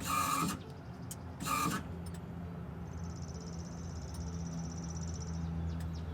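Two short clicks or chimes as the ignition is switched on, then a high-pitched electric buzz of about two and a half seconds from the 2014 Ford Escape's fuel pump priming. The owner suspects the pump is failing.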